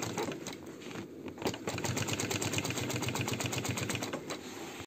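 Industrial sewing machine stitching a seam in car-seat upholstery fabric: a rapid, even clatter of needle strokes that dips briefly about a second in and cuts off at the end.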